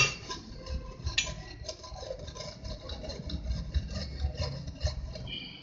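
Dry-roasted whole spices (chillies, cumin and coriander seeds) being crushed coarsely on a board: a faint run of small irregular crunching ticks with low knocks.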